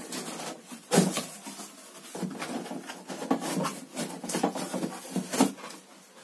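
Cardboard box being opened by hand: flaps rustling and scraping, with two sharper knocks, one about a second in and one near the end.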